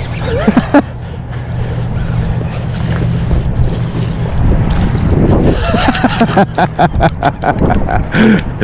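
Wind rumbling on the microphone during the fight with a freshly hooked fish on the line, joined about halfway through by a rapid run of short, sharp sounds.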